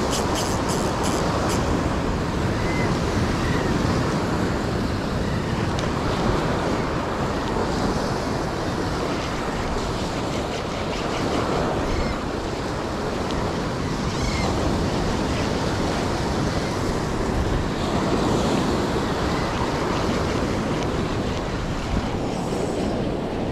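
Surf breaking and washing over a rocky shore, with wind buffeting the microphone. A few faint quick clicks sound right at the start.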